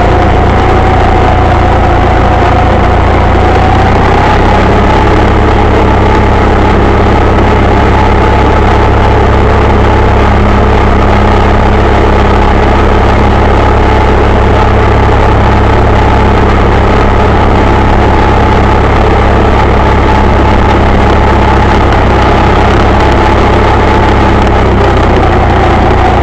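John Deere 318 garden tractor's Onan flat-twin engine running steadily under way, loud and close. Its pitch rises a little about four seconds in and drops back near the end.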